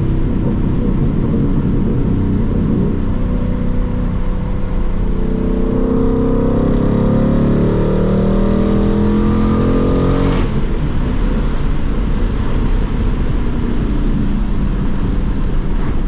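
Ford Mustang GT's 5.0 L Coyote V8 running under way, its pitch climbing steadily as the car accelerates from about five seconds in. About ten seconds in the pitch falls suddenly with a short click, as at an upshift of the six-speed manual.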